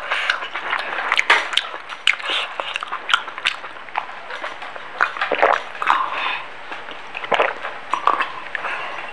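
A man drinking water from a glass in sips and gulps, with irregular small mouth clicks, swallows and breathy hisses.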